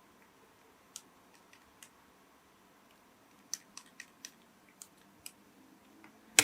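Faint, scattered small clicks and ticks of a camera lens being handled while its switches and buttons are brushed with a Lenspen brush, with one sharper click near the end.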